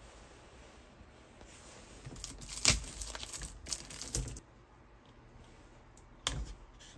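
Plastic straw wrapper crinkling and tearing as the straw is pulled free of a drink carton, a burst of sharp crackles lasting about two seconds. A single sharp click follows about six seconds in.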